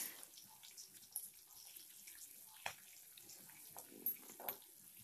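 Faint sizzling of hot oil with a few short sharp pops and crackles scattered through it, as dried red chillies fry in a tempering with green chillies and ginger.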